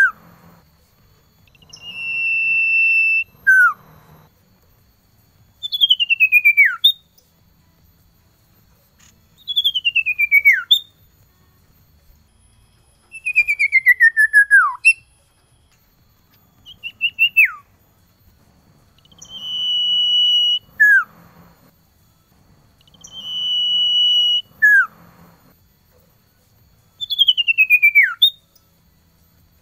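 Male common iora singing, a phrase about every four seconds. Some phrases are a long, steady high whistle ending in a quick drop. Others are a quivering whistle that slides down in pitch, with a pair of short falling notes between them.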